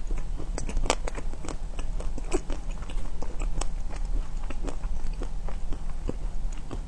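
Close-miked biting and chewing of a small ice cream bar's crackly chocolate coating with crunchy pieces: an irregular run of crisp crunches and crackles, several a second.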